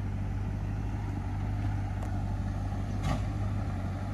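A 4x4's engine running slowly with a steady low drone as it crawls over rocks, with two brief clicks about two and three seconds in.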